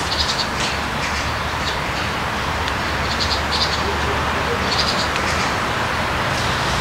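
Steady background rumble and hiss, with a few short high-pitched chirps in small clusters near the start, around three seconds in and again near five seconds.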